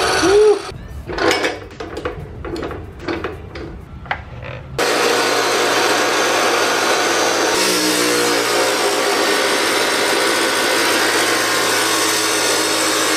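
Hercules abrasive chop saw cutting through metal tubing. After a few seconds of short, uneven bursts, a steady loud grinding of the cut-off wheel in the metal starts suddenly about five seconds in and keeps going.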